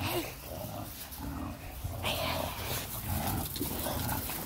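Dog making short sounds several times, separated by pauses.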